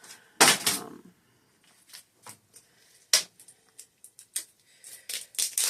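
Doll packaging and accessories being handled: a loud rustle about half a second in, then scattered small clicks and taps, with one sharp click a little after three seconds.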